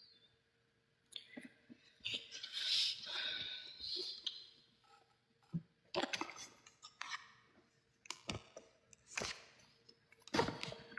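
Scattered clicks and short rustles, typical of a handheld phone being moved and handled against its microphone, over a faint steady hum.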